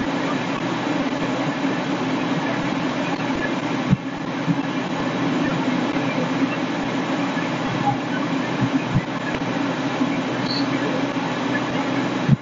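Steady mechanical rumble of fire engines' diesel engines running at the scene, with a few short low knocks over it.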